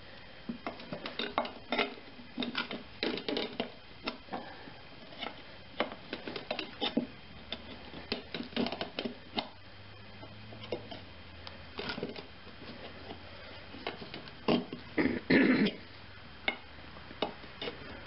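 Metal tire tool clinking and scraping against a steel wheel rim as the bead of a 15x6.00-6 lawn tractor tire is levered onto it a little at a time, in short irregular clanks and knocks. A louder cluster of clanks comes about fifteen seconds in.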